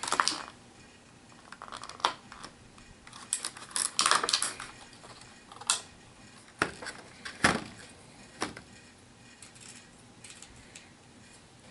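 Plastic miniature figures and their booster packaging being handled on a table: scattered light clicks and clatter, busiest about four seconds in.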